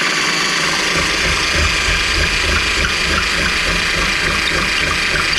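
Cordless drill running steadily, enlarging a cable hole in a bus's roof panel.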